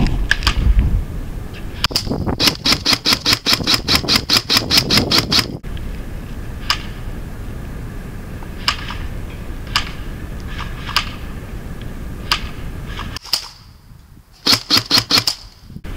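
Airsoft guns firing: a rapid string of sharp shots, about six a second for some three seconds, then scattered single shots, and another short burst near the end.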